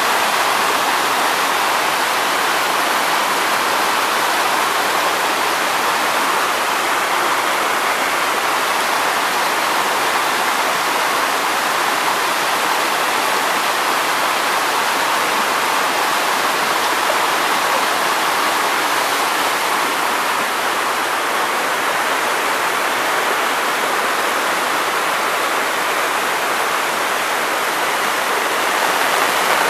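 Muddy floodwater rushing fast down a narrow channel and spilling over a small cascade: a steady, even rush of water.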